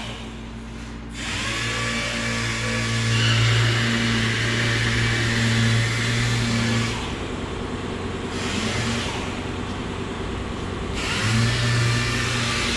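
Dual-action (DA) orbital sander dry sanding dirt nibs out of a car's clear coat: a steady motor hum with a hiss. It starts about a second in and runs for roughly six seconds, then stops, and it runs briefly again near the end.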